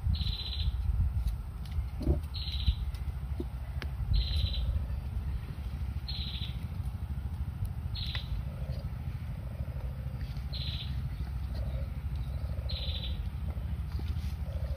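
A bird repeating a short, high trilled call about every two seconds, over a steady low rumble and a few faint clicks.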